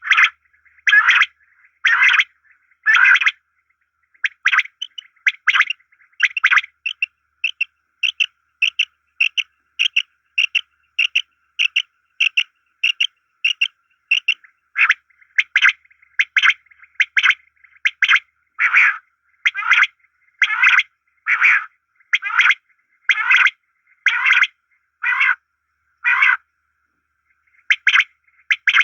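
A pair of quail calling: short, repeated calls at about one a second, with a faster, higher-pitched run of calls at about two a second in the middle.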